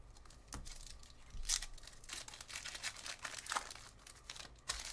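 Card pack wrappers tearing and crinkling as packs are ripped open and cards handled, in a string of irregular short rustles and crackles.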